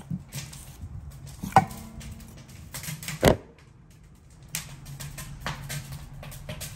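Two sharp knocks about a second and a half apart, the first with a brief ring, among lighter taps and clicks of cooking gear and food being handled, over a steady low hum.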